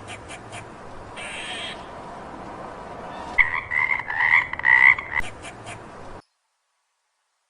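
Frog calling: a run of rapid, pulsed croaks lasting a couple of seconds, then the sound cuts off to silence.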